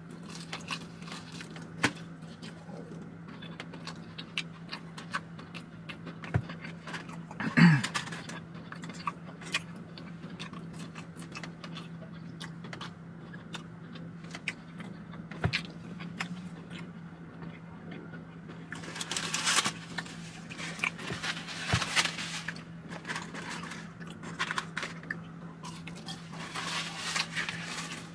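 Someone eating buffalo chicken wings: scattered clicks and mouth sounds of chewing, with crackly spells around twenty seconds in and again near the end, over a steady low hum. A brief vocal sound, the loudest moment, about eight seconds in.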